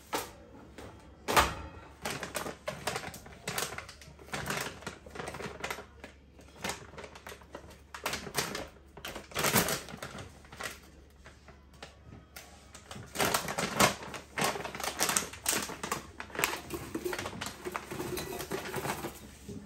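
Hard plastic food storage containers being set down and shifted in the wire baskets of a pull-out pantry unit: a run of irregular clicks and knocks. Near the end, dishwasher tablets are tipped from a bag into a tall glass jar.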